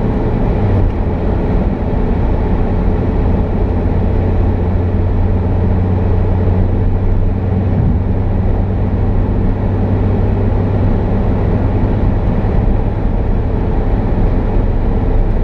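A car driving, with a steady low engine hum under an even rumble of road noise.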